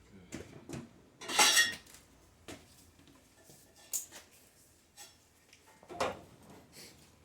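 Metal parts clinking and rattling as a wheel hub and its pressing tools are set up on a shop press: a few separate clinks, with the loudest, a short rattle, about a second and a half in.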